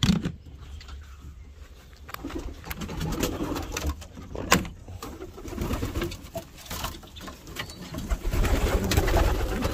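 Racing pigeons cooing, several birds at once, the cooing growing fuller toward the end. A few sharp knocks break in, the clearest about halfway through.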